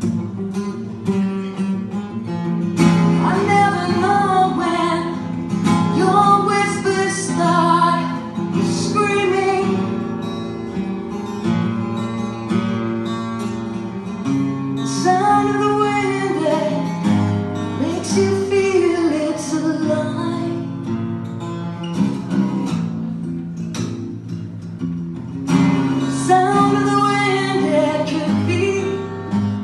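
A song with acoustic guitar strumming under a singing voice that holds long, bending notes.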